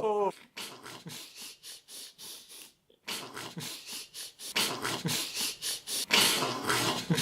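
A person panting in rapid, breathy puffs. There is a brief pause about three seconds in, and the puffs grow louder from about halfway through.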